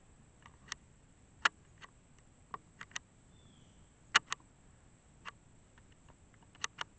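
Irregular sharp clicks and ticks, about a dozen with no steady rhythm, the loudest about a second and a half in and about four seconds in, over a faint steady high whine.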